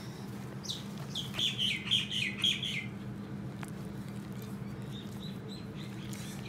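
A bird chirping in a quick run of high notes about a second in, then a few fainter chirps near the end, over a steady low hum.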